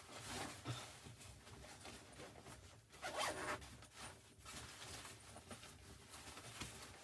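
A zipper being drawn in several short, raspy pulls, the longest and loudest about three seconds in.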